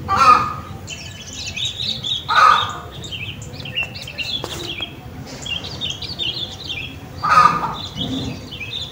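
Outdoor garden ambience: small birds chirp in quick high twitters throughout, and a larger bird gives three louder, lower calls, near the start, about two and a half seconds in, and near the end.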